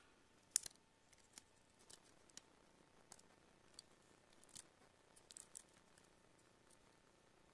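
Faint, irregular small clicks and ticks of hand tools against a tablet's plastic case as it is worked open, with the sharpest click about half a second in.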